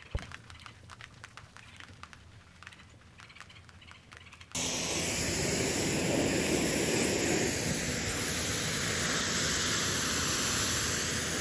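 Quiet at first with faint scattered ticks. About four and a half seconds in, a pressure washer starts spraying: a loud, steady hiss of the water jet rinsing snow foam off a pickup truck's body.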